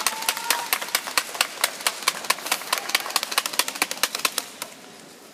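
Scattered applause from a small number of people clapping in a large sports hall. The claps are sharp and irregular and die away about four and a half seconds in.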